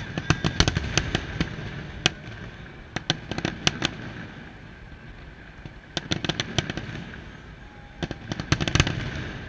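Aerial fireworks bursting: clusters of sharp cracks and bangs in four volleys, each lasting a second or two, with short lulls between.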